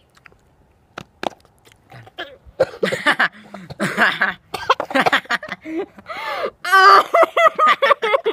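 Girls' voices in loud, broken outbursts of coughing, laughing and squealing, starting about two seconds in, with no clear words.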